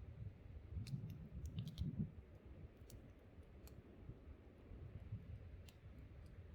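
Wood campfire crackling: scattered sharp pops at irregular intervals over a low rumble of wind that swells a second or so in.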